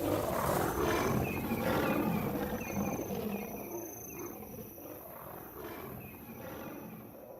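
Lions roaring and growling, loudest over the first few seconds and then fading away.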